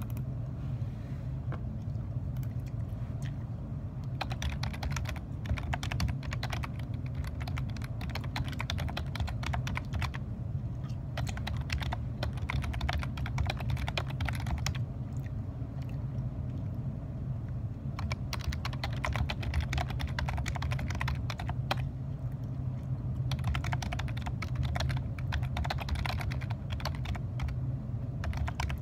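Typing on a computer keyboard: runs of quick key clicks, with a lull near the start and another about halfway, over a steady low hum.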